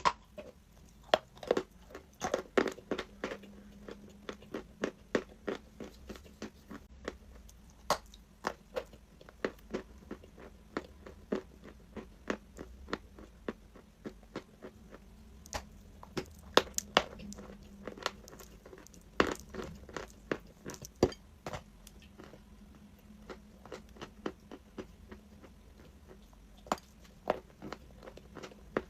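Crunchy chalk being bitten and chewed close to the microphone: sharp, irregular crunches and cracks, several to a second in flurries, with quieter chewing between.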